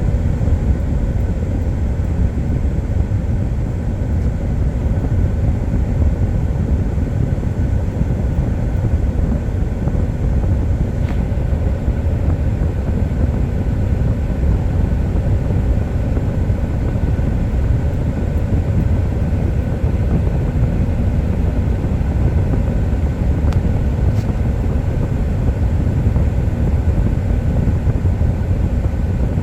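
A 2013 Ford truck's engine running steadily, a continuous low rumble with faint steady tones above it.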